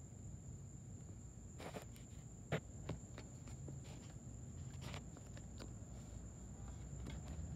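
Night insects droning steadily at a high pitch, with a few scattered clicks and taps over a low rumble; the loudest click comes about two and a half seconds in.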